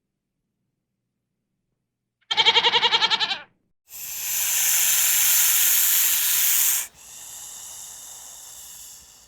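A goat bleats once, a quavering call of about a second, about two seconds in. A loud hiss follows for about three seconds, then a fainter hiss that fades near the end.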